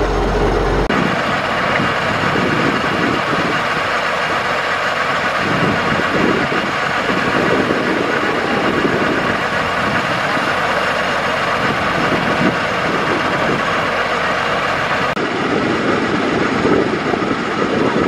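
Kubota DC-95 combine harvester running steadily while harvesting rice, its diesel engine and machinery making a dense, continuous noise. The sound changes abruptly about a second in and again near the end.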